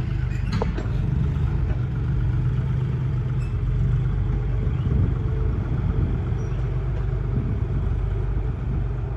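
Diesel farm tractor engines running, a steady low drone with a faint rumble.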